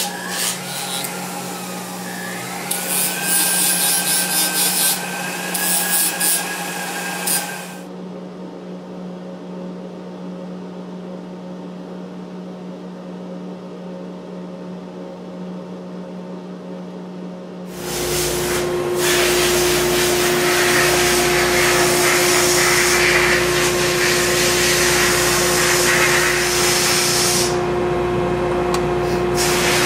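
A flexible-shaft rotary tool grinding and polishing a cast bronze wolf skull, its whine sliding in pitch as the speed changes, stopping about eight seconds in and leaving a steady shop hum. About eighteen seconds in a sandblast cabinet starts: a loud, even hiss of blasting with a steady hum under it.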